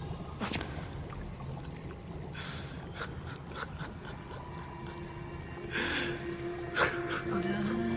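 Ragged gasping breaths of an exhausted, wounded fighter over a steady low rumble. Sustained film-score tones come in about five and a half seconds in, with another held tone near the end.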